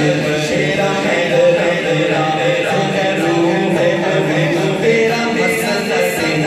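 A man chanting an Islamic devotional recitation into a microphone, amplified, in long held melodic lines.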